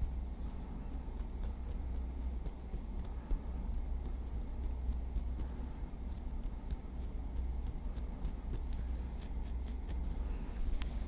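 Small wooden stick tapping lightly, with quick, uneven taps several times a second over a low steady hum.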